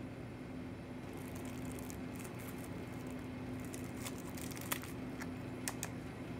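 Gloved hands handling a plastic-packaged garden decoration pick: light crackling and rustling with a few sharp clicks, over a steady low hum.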